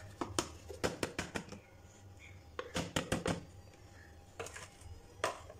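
Metal spoon tapping and scraping against a bowl as flour is knocked out of it into a tub of minced chicken. There is a quick run of taps at the start, another cluster about three seconds in, and one more tap near the end.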